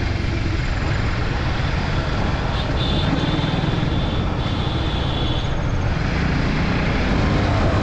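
Honda CBR150R single-cylinder engine running steadily at road speed, with wind rushing over the microphone. A steady high-pitched tone joins in for about three seconds mid-way.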